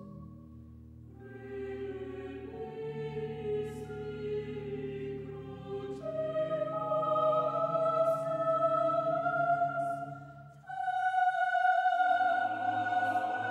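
Background music: a choir singing slow, long-held notes that move from chord to chord, with a brief break a little past ten seconds in before the voices come back louder.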